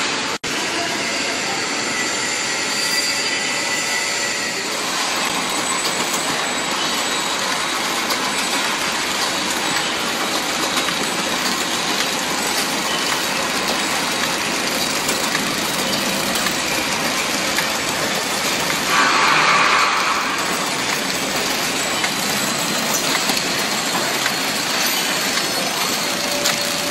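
Packing machine running: a continuous, dense mechanical clatter and hiss, with a louder stretch about nineteen seconds in that lasts over a second.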